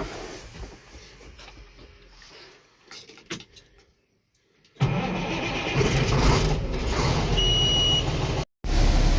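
A few faint clicks, then about halfway through a diesel engine starts abruptly and runs loudly and steadily, with a high single-tone beep sounding for about half a second a little later. The sound cuts out for a moment near the end and resumes running steadily.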